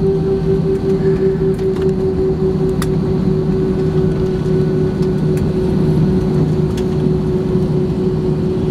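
Cabin noise of a jet airliner rolling down the runway just after touchdown, spoilers raised: a steady engine drone with a held humming tone over a low rumble, with a few faint clicks.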